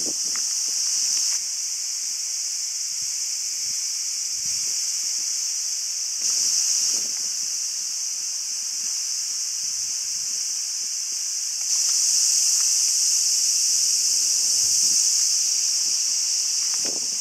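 A chorus of insects in the trees, a steady high-pitched buzz that swells louder briefly about six seconds in and again from about twelve seconds on.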